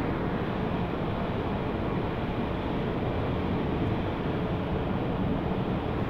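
Steady, even background noise with a low rumble and no distinct events, picked up by a phone's microphone.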